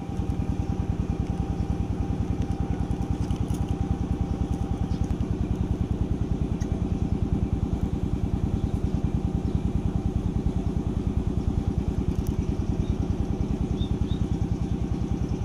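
An engine running at a steady speed, with a fast, even low pulse.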